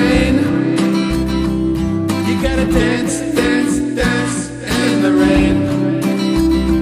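Instrumental break of a folk-country song: strummed acoustic guitar over a long held tone and a bass line, with no singing.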